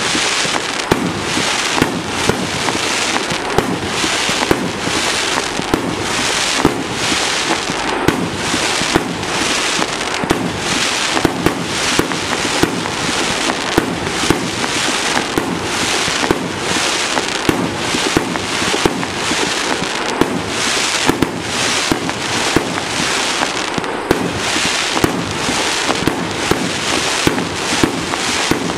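A 30 mm, 50-shot consumer firework cake firing shot after shot in a steady sequence, about two a second, with a continuous hiss between the sharp reports.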